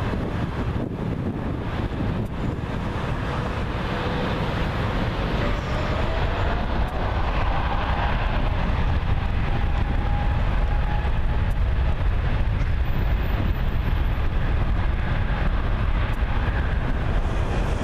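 Boeing 777-300ER's two GE90-115B turbofans spooling up for the takeoff roll: a deep rumble growing steadily louder, with a whine that rises in pitch from about four seconds in and then holds steady.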